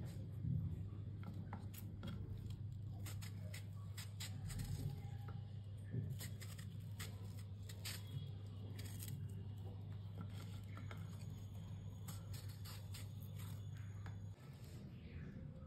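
A knife slicing firm raw green banana into strips, with scattered crisp clicks as the blade cuts through the flesh and taps the wooden board. A steady low hum runs underneath and cuts off near the end.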